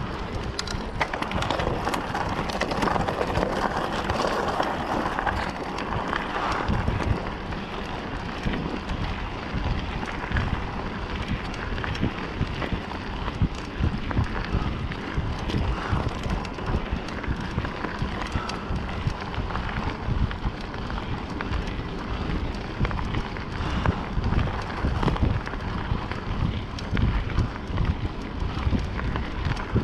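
Wind buffeting the microphone during a mountain-bike ride, over the steady rumble of knobbly tyres rolling on a dirt and gravel trail and the bike's frequent small rattles and knocks over bumps.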